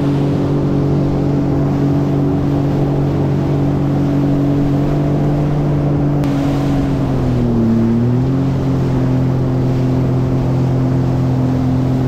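Sea-Doo Fish Pro Trophy jet ski engine running at steady cruising speed, with water and wind rush. Its pitch drops briefly about seven and a half seconds in, then climbs back to where it was.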